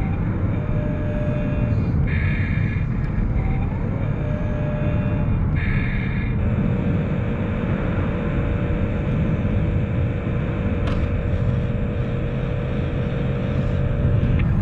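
Steady, dense low rumble like vehicle noise, with a steady hum that comes in about six seconds in and holds.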